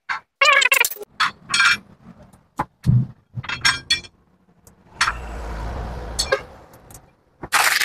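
Sharp, ringing clinks and clatters of hard tools and parts being handled during a motorcycle tire change. About five seconds in, a low hum with a hiss runs for over a second, then more clinks follow.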